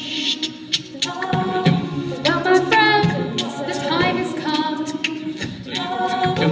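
Mixed-voice vocal ensemble singing a cappella in close harmony, with held chords under moving melodic lines, over a steady beat of sharp clicks.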